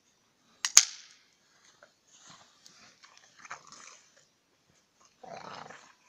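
Dogs rooting in deep snow: soft, scattered scuffling noises, with one sharp snap about a second in that is the loudest sound.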